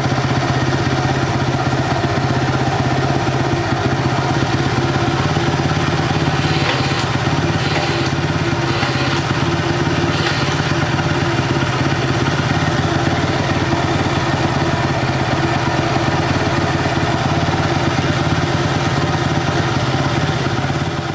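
Honda Cub's single-cylinder four-stroke engine running steadily at an even speed, with no revving.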